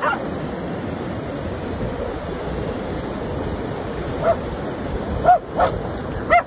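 Steady rush of ocean surf, with a dog giving short, high barks: once at the start and four times in quick succession near the end.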